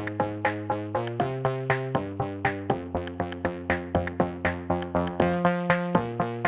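Background electronic music: synthesizer chords over a steady drum-machine beat of about four hits a second.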